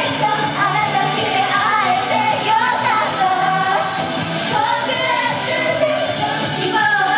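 J-pop song performed live by a female idol group: women's voices singing over upbeat pop accompaniment.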